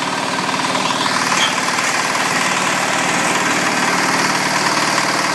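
Single-cylinder diesel engine powering a QM4-45 egg-laying concrete block machine, running steadily with a fast, even knocking beat.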